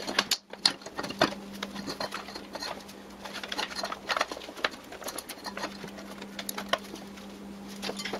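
Irregular small taps, scrapes and rustles as a rubber mower-deck drive belt is pulled and looped around the pulleys of a Grasshopper mower deck, the belt knocking and dragging against the pulleys and the steel deck. A steady low hum runs underneath.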